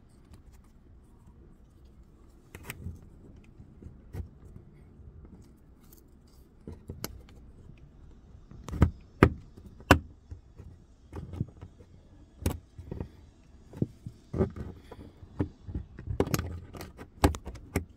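Plastic pry tool clicking and scraping against a dashboard tweeter grille and its surround as the grille is levered out of the dash. Scattered sharp clicks and knocks, coming faster in the last couple of seconds.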